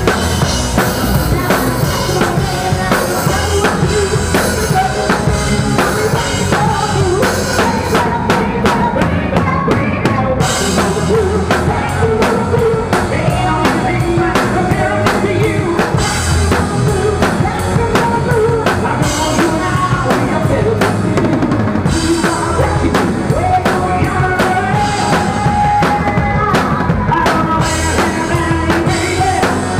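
Rock drum kit played live and heard close up: fast bass drum, snare and cymbal hits driving a loud rock band. The cymbal wash drops away briefly twice, leaving tight drum hits, then comes back.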